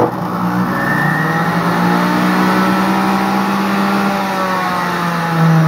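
Kitchen Living centrifugal juice extractor's motor running empty on speed one, its spinning blade basket giving a very loud, steady whine and hum that swells a little near the end.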